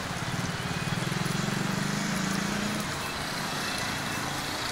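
A motor vehicle's engine runs close by, a fast low pulsing that swells and then fades away about three seconds in, over a steady hiss of street noise.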